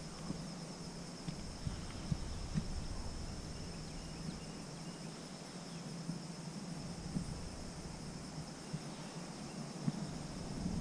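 Insects chirping steadily in a continuous high, pulsing chorus, with a few faint clicks scattered through it.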